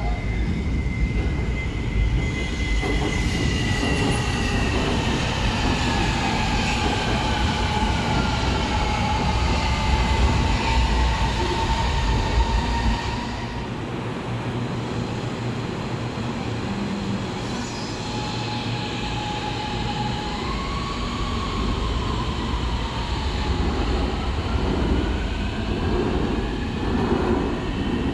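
CSR Zhuzhou AMY electric train slowing to a stop, its motor whine falling steadily in pitch over about ten seconds. After a quieter stretch of several seconds, it sets off again with the whine rising in pitch as it picks up speed.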